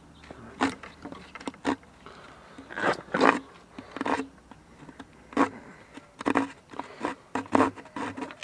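Small multi-tool blade sawing at a wooden stick in short, irregular scraping strokes, roughly one or two a second.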